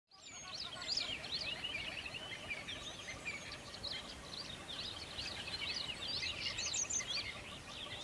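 Many small birds chirping together, a dense chorus of quick high chirps and short rising and falling whistles.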